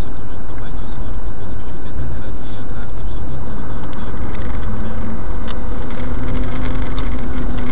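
A car driving, its engine and tyre noise a loud, steady rumble; a steady engine note comes in about five seconds in.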